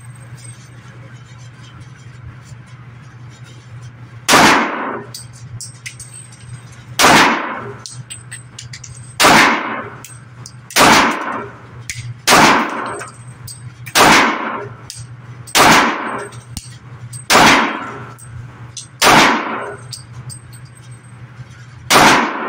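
Ten shots from a Smith & Wesson M&P 2.0 3.6-inch .40 S&W pistol in slow aimed fire, about one and a half to three seconds apart. Each shot rings out with a reverberant tail in an enclosed indoor range.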